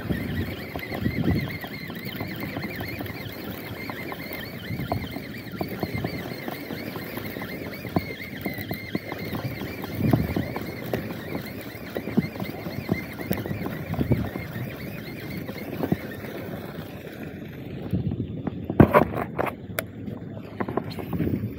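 Steady drone of the sportfishing boat with water and wind, under a thin wavering whir from a baitcasting reel being cranked to work a jig. A few sharp clicks and clatters from the reel and rod come near the end.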